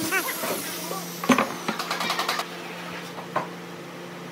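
Wooden boards being handled on a workbench: a short squeak at the start, a sharp knock about a second in, then a few lighter clicks and taps over a steady low hum.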